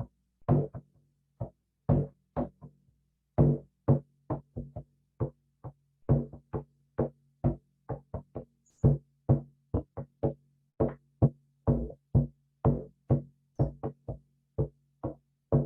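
A drum struck over and over in an uneven beat, about two strokes a second, each ringing on in a low tone, with some softer strokes between the louder ones.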